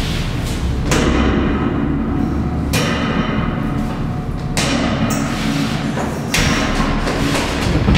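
Suspense film score: four heavy percussion hits about two seconds apart, each ringing on over a steady low drone.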